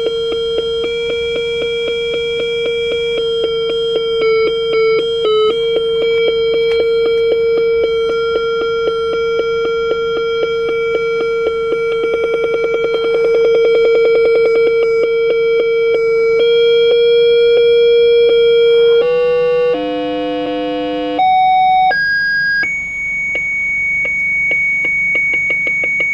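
8-bit square-wave tones from an Arduino UNO sound-effect box: a long held buzzing tone with a fast pulsing flutter. About three-quarters of the way in it breaks into a quick run of tones jumping in pitch, then settles on a higher held beep.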